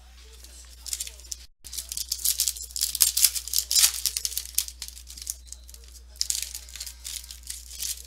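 Foil wrapper of a Topps Fire football card pack crinkling and tearing as it is opened by hand, in two spells of crackling, over a steady low hum.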